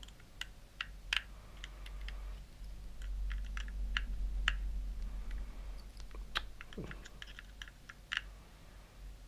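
Light, irregular clicks and ticks of a small screwdriver working the tiny screws in the metal plate of a camcorder's image-sensor block, over a low hum.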